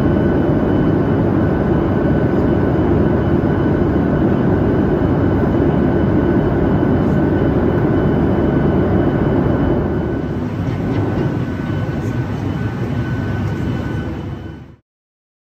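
Boeing 737-800 jet noise: a loud, steady rush with a thin, steady whine running through it. It eases slightly about ten seconds in and cuts off suddenly near the end.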